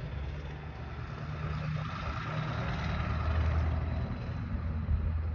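A heavy engine rumbling steadily, swelling somewhat louder toward the middle, with a faint high whine over it.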